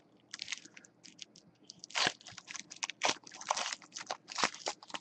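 Crinkling and crackling of a trading-card pack wrapper and cards being handled, in irregular bursts with louder rustles about two, three and four and a half seconds in.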